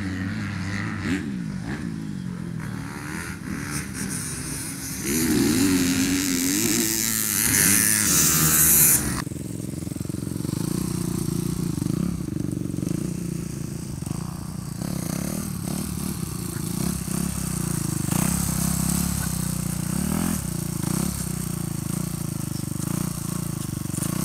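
Four-stroke Honda motocross bike engine revving up and down as the bike is held in wheelies, with a louder, hissier stretch from about five seconds in that cuts off abruptly around nine seconds.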